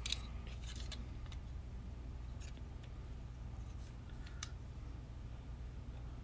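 A few faint, sharp clicks of hard plastic Transformers toy parts being handled and unfolded, the clearest about four and a half seconds in, over a steady low hum.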